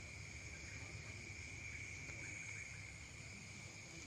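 Faint, steady high-pitched insect trill, such as a cricket's, over low background rumble.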